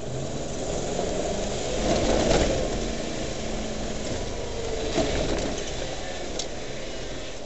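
Steady vehicle rumble heard from inside an off-road vehicle's cab, with scattered knocks and rattles and a louder swell about two seconds in.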